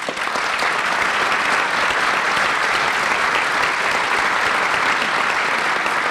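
Audience applauding steadily, a dense wash of many hands clapping that starts sharply at the end of a speaker's remarks.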